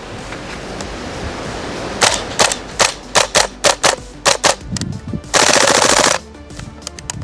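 A VFC MP5 gas blowback airsoft gun firing about ten single shots at roughly three a second, starting about two seconds in, then one short full-auto burst lasting under a second.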